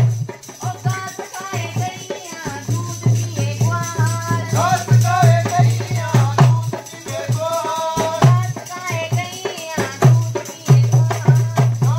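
Dholak barrel drum beating a steady folk rhythm, with a voice singing over it.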